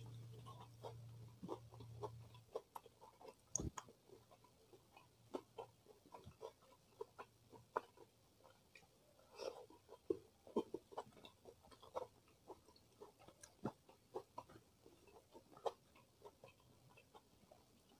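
Close-miked eating: irregular small wet clicks and smacks of chewing and mouth sounds, several a second, with one sharper knock just before four seconds in.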